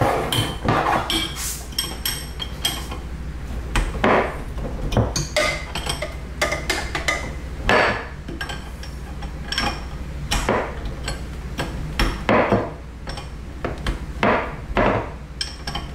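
A wrench clinking and knocking on the metal fitting of a steel braided water supply line as it is tightened onto the shutoff valve under the sink. The short, irregular clinks and clicks come every second or so.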